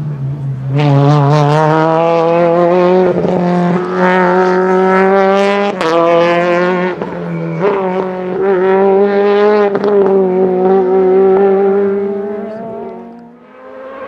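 World Rally Car's turbocharged four-cylinder engine revving hard along a special stage, its pitch climbing and dropping again and again through the gears. Several sharp cracks come between shifts, and the sound dies away briefly near the end.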